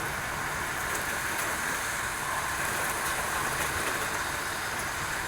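Steady rushing hiss of a heavy rainstorm with strong wind, even throughout with no single impacts standing out.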